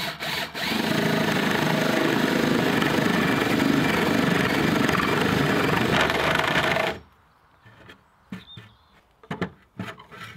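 A motor-driven tool or machine running steadily at full speed, with a faint steady hum under a loud rushing noise, cutting off suddenly about seven seconds in; a few separate knocks follow.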